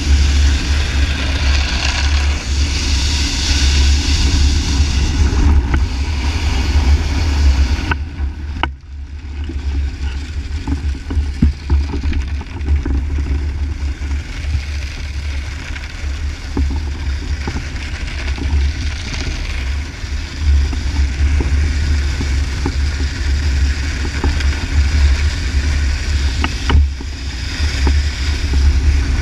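Wind buffeting the action camera's microphone with a deep rumble, over the steady hiss of a snowboard sliding across ice. The sound briefly drops away about eight and a half seconds in.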